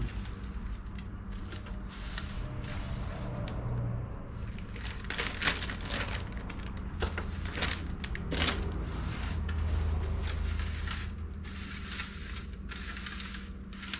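Plastic zip-top bag crinkling and rustling in irregular bursts as gloved hands scoop cured salmon eggs and wet cure into it.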